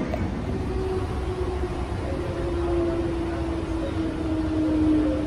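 Cabin noise of a Transperth electric suburban train on the move: a steady rumble from wheels and track, with a motor whine that slowly drops in pitch.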